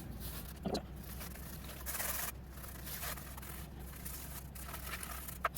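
Irregular scraping and rubbing strokes as penetrating epoxy is worked into the rough, deeply ridged surface of a wood slab, with a sharp click near the end.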